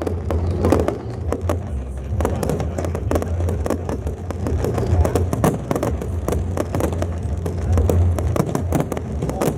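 Fireworks crackling and popping in quick, irregular succession over music and a steady low rumble.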